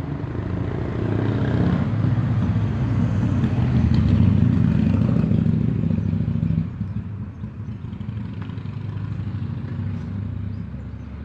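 A motor vehicle's engine running as it passes on the street, building to its loudest about four seconds in and dropping away suddenly a little before seven seconds.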